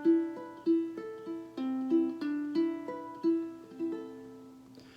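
Solo ukulele picking single notes in a slow, even line, each note ringing and fading. The notes thin out and die away near the end.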